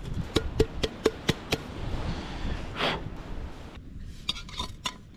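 Camp cooking gear being handled: a quick run of about six metallic clicks and clinks, a short rushing noise, then a few more clinks near the end.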